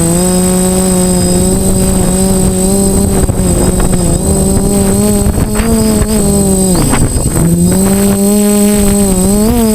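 DJI F450 quadcopter's four electric motors and propellers buzzing steadily. The pitch drops sharply about seven seconds in and climbs back, with a short rise near the end, as the throttle changes.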